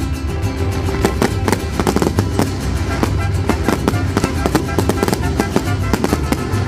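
Fireworks crackling and popping in quick, irregular bursts, with music playing underneath.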